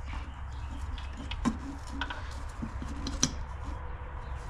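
A few light clicks and taps of an intercooler pipe and its mounting tab being handled and set into place, with a steady low hum underneath.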